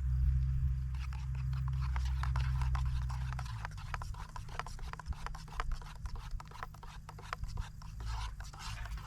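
Low rumble of strong wind, joined about a second in by rapid, irregular crackling rustles.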